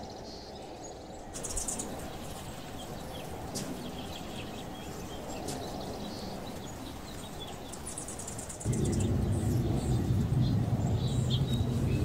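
Small birds chirping in short, high, scattered calls over a low steady background rumble. About three-quarters of the way in, a much louder low hum sets in and becomes the loudest sound.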